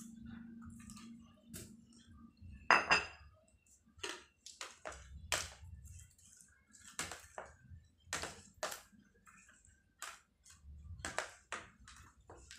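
Hot water poured from a ceramic mug into a plastic tray of pellet bait mix, then a ringing clink as the mug is put down about three seconds in. After that come irregular short knocks and rustles of a hand kneading the wet bait against the plastic tray.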